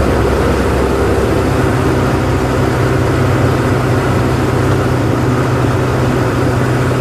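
Ultraflight Samba XXL light aircraft in flight, heard from inside the cockpit: the engine and propeller drone steadily.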